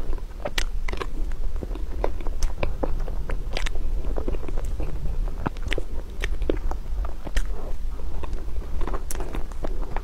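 Close-miked chewing of chocolate mousse cake: soft, wet mouth clicks and smacks at an irregular pace, over a steady low hum.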